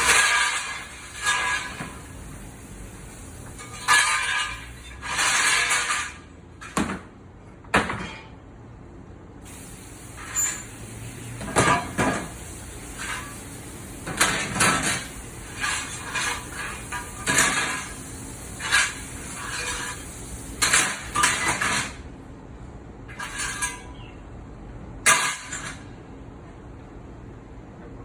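Dishes, pots and utensils being washed in an outdoor metal-lined sink: irregular clanks, knocks and short ringing clatters of items striking the metal basin and each other.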